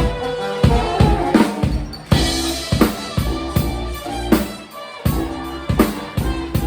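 A live band playing: a drum kit keeps a steady beat of bass drum and snare hits about every 0.7 s, under sustained pitched instrument notes.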